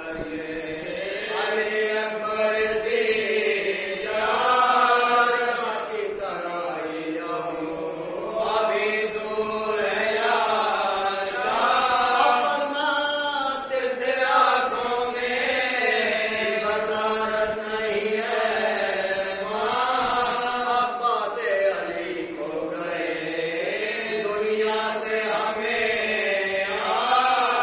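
Group of men chanting an Urdu marsiya, an elegy for Hazrat Abbas, together without instruments, in long melodic phrases that rise and fall.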